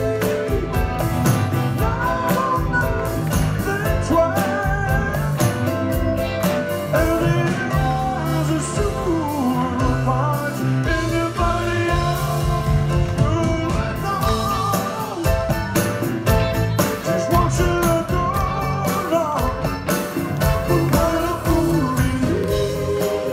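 Live band playing a song with singing over it: grand piano, bass guitar and drums with a steady beat, heard from within the audience.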